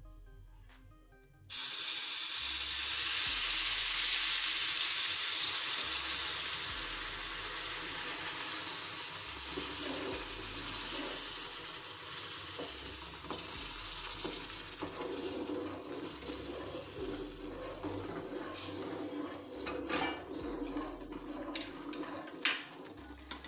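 Hot milk and water poured onto semolina roasted in ghee in a steel kadai, sizzling loudly as it hits the hot fat. The hiss starts suddenly about a second and a half in and slowly dies down, with a few clinks of the steel spoon against the pan near the end as the mixture is stirred.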